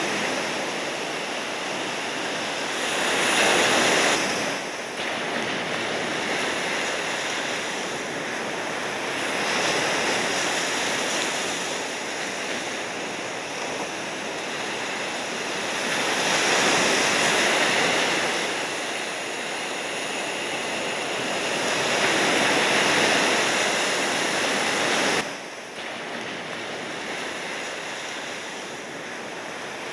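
Ocean surf: a steady wash of breaking waves that swells louder and eases every six or seven seconds, with a sudden drop in level near the end.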